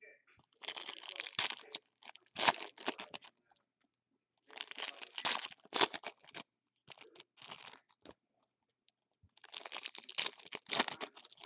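Foil trading-card packs being torn open and their wrappers crinkled, in three main bursts of crackling with short quiet gaps between.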